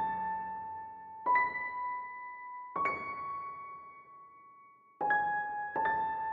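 Background piano music: single sustained notes struck slowly, about one every second and a half, each fading before the next, with two notes close together near the end.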